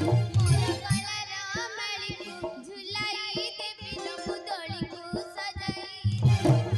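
Folk theatre music: a high voice sings an ornamented, wavering melodic line. Hand-drum beats stop about a second in and come back near the end.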